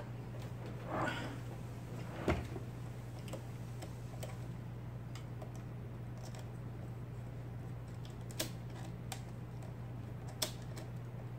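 IBM ball (golf-ball element) typewriter switched on, its motor humming steadily, with a few isolated clicks and knocks from the typing mechanism rather than continuous typing; the loudest knock comes about two seconds in.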